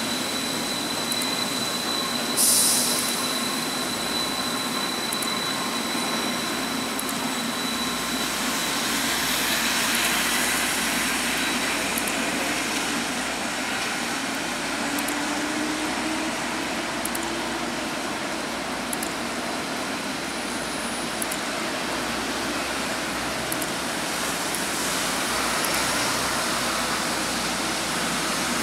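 Rubber-tyred automated metro trains running on an elevated guideway, over a steady hiss of traffic on the wet road below. A thin high steady whine fades out about twelve seconds in as one train leaves, with a short sharp hiss a couple of seconds in. Midway, a faint rising hum comes as another train approaches.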